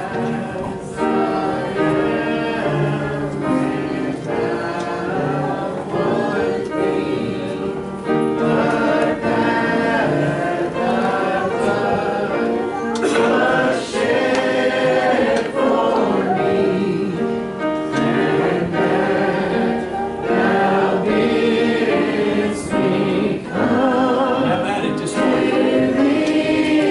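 Church congregation singing a gospel hymn together in long held notes: the invitation hymn sung while people are called forward to the altar.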